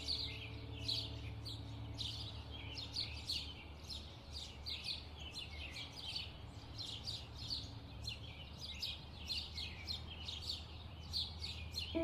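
Birds chirping: many short, quick chirps that sweep downward in pitch, several a second and overlapping, over a low steady hum.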